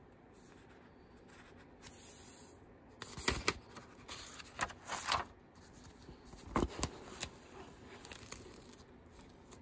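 A spiral-bound sketchbook page being turned by hand: the paper rustles and flaps in several short bursts, loudest about three seconds in and again near seven seconds.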